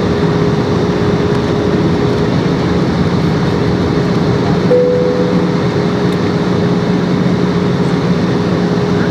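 Steady jet airliner cabin noise: engine and rushing-air noise with a constant hum, and a short higher tone about five seconds in.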